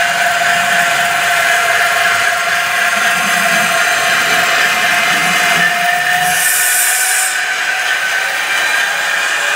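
Model Ludmilla diesel locomotive running on its sound decoder: a steady diesel engine drone with a steady whining tone that stops about six seconds in, followed by a short high hiss lasting about a second.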